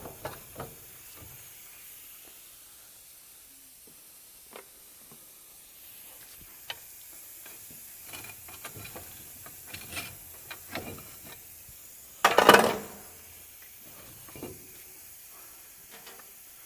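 Scattered clicks and knocks of a loosened brake caliper and hand tools being handled, with one louder clatter of metal about twelve seconds in, over a faint steady hiss.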